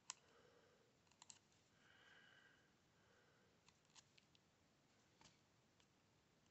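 Near silence, broken by a few faint, sharp clicks as fingers handle a plastic-backed sheet of small double-sided foam adhesive dots: one near the start, two just after a second in, and a couple more later.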